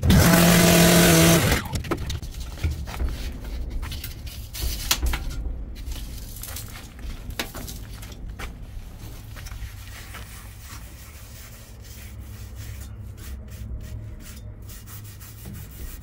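A gas-powered cut-off saw runs at full throttle for about a second and a half, then stops. After that comes rubbing and scraping as the cut sheet-metal jacket of a water heater is pulled and handled by hand.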